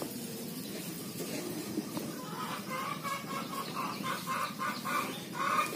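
Short bird calls repeated about three times a second, starting about two seconds in.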